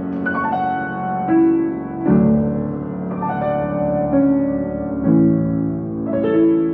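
Solo piano playing slow, gentle chords, a new chord about every second, with short falling runs of high notes near the start and again about three seconds in.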